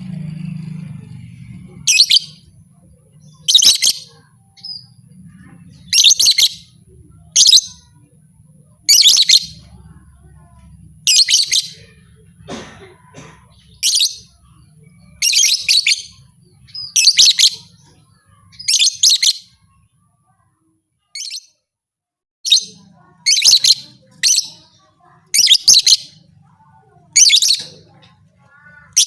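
Lovebird chirping in short, high-pitched bouts, one about every second and a half, with a brief pause about two-thirds of the way through.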